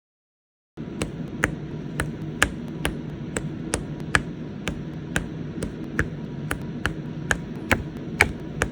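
Plastic press-on nail tips being stuck on one after another: light, sharp clicks about twice a second, evenly paced, over a steady low hum. They start about a second in, after silence.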